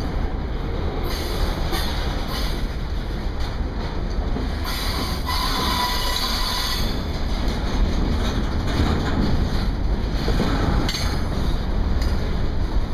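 Double-stack intermodal freight cars of a CSX train rolling slowly past, the wheels rumbling on the rails, with intermittent high screeches and squeals from the wheels, strongest around the middle. Wind buffets the microphone.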